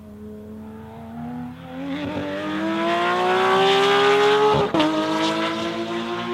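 Porsche 992 GT3 RS's naturally aspirated 4.0-litre flat-six, with a SOUL aftermarket exhaust, accelerating hard with rising pitch and growing louder as it approaches. About four and a half seconds in it snaps through a quick upshift with a sharp crack, then pulls again in the next gear as it moves away.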